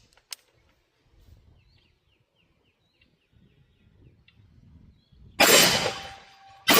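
Two shots from a 5.56 AR pistol: the first comes about five seconds in, and the second follows just over a second later, right at the end. Each is very loud and sudden, with a long echoing tail. Before the shots there are a few faint, high, quick chirps.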